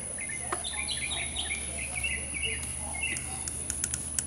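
A small bird chirping in a quick run of short, stepped notes, followed by a few faint sharp clicks near the end.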